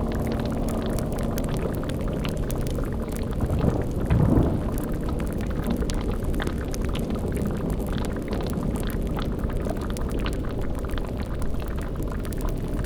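Cauldron boiling and bubbling steadily, with fine fire crackles over it, as layered sound-effect ambience. A brief louder low surge comes about four seconds in.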